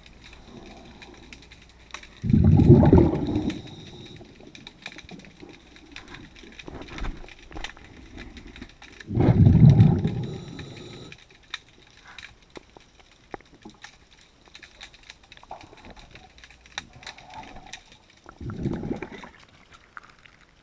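A scuba diver breathing out through the regulator underwater: three bursts of bubbles about seven seconds apart, each a second or so long, with scattered faint clicks in between.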